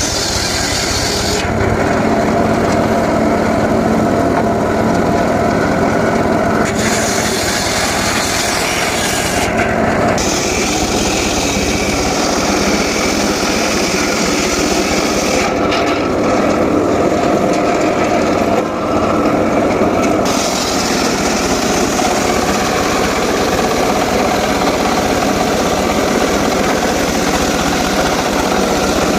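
Homemade circular saw cutting teak wood, the blade running loud and steady through the cut, with a continuous rasping hiss over a steady hum.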